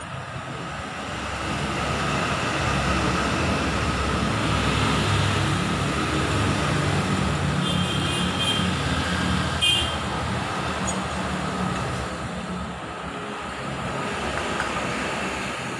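Yamaha R25's 250 cc parallel-twin engine running. It grows louder a couple of seconds in, holds, then settles back, with two short metallic clinks near the middle.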